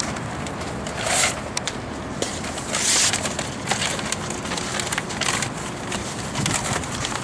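Signs being torn off a post and crumpled: crackling and tearing, with louder rips about a second in and around three seconds in.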